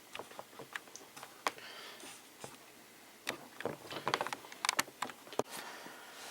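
Irregular light clicks and taps of hands handling small hard parts, with a sharper click about five and a half seconds in.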